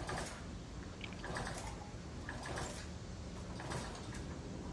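Faint mechanical rattles and clicks from handling a motorized bicycle during a spark test, as the wheel and engine are worked to turn the magneto. It comes as a handful of soft rattles, roughly one a second.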